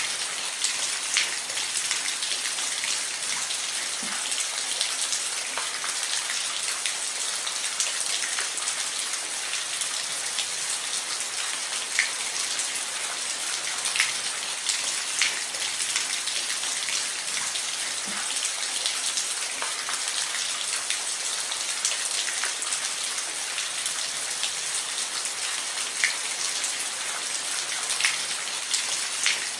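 Steady rain falling on a roof, an even hiss with scattered sharper drop ticks every second or two.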